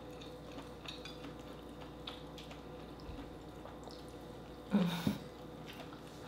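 Eating sounds up close: faint wet mouth clicks and smacks while eating king crab meat and rice, with one brief louder mouth sound about five seconds in.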